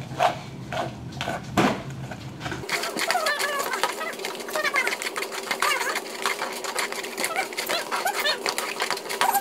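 Spoons stirring and scraping a watery slime mixture in clear plastic tubs: a fast, uneven run of small clicks and scrapes.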